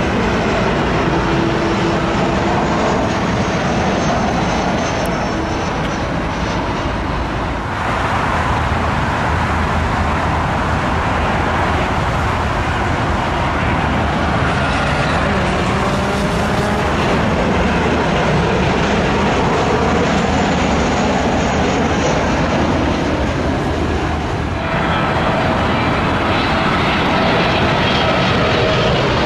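Jet airliners on final approach passing by, their turbofan engines making a steady loud rush with a thin whine over it. The sound cuts abruptly twice, about eight seconds in and about 25 seconds in, as a Boeing 737-700, a Boeing 737-800 and a Boeing 777 freighter follow each other.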